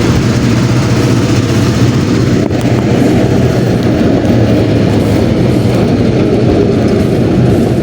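1972 Ford F100's V8 running under way, a steady low engine drone mixed with loud rumbling road and wind noise.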